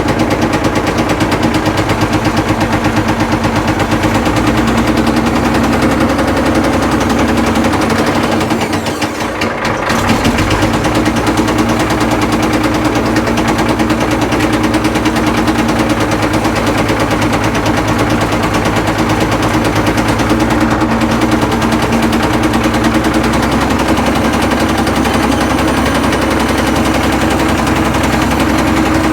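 Caterpillar 977L track loader's diesel engine running with a rapid, heavy knock, a steady loose-sounding clatter that the owners find horrible even though the engine has good oil pressure. The sound dips briefly about nine seconds in.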